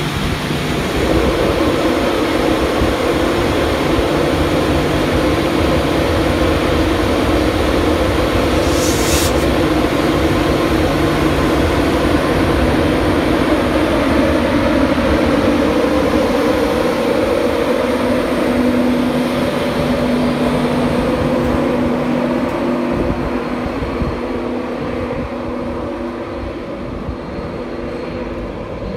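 Class 91 electric locomotive moving slowly past at close range with its Mk4 coaches: a steady electric hum with several held tones over the rumble of wheels on rail. A brief hiss about nine seconds in, and the sound eases off near the end as the coaches go by.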